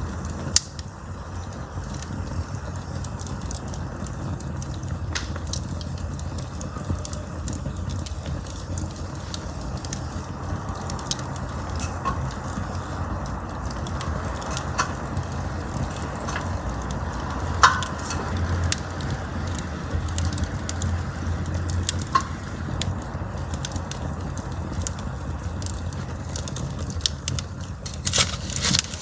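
Campfire burning: a steady low rumble under scattered crackles and sharp pops of burning wood. A loud pop comes about half a second in and another a little past halfway, with a flurry of crackles near the end.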